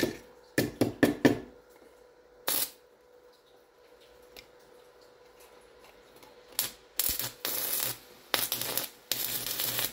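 Stick (arc) welder at work on steel plate: first a few short, sharp strikes of the electrode against the metal, then, from a little past halfway, the arc crackling in runs of about a second that break off and start again.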